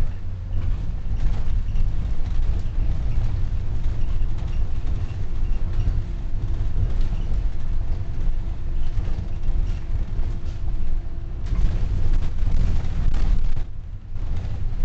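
Volvo Wright Eclipse Gemini double-decker bus under way, heard from the upper deck: a steady low engine and road rumble with tyre hiss from the wet road. A steady whine runs through the middle, and a louder rush of noise comes about twelve seconds in before dropping away briefly near the end.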